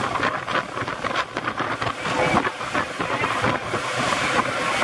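Motorboat under way through choppy water: engine noise mixed with rushing, splashing water along the hull, with irregular knocks of the hull meeting the waves.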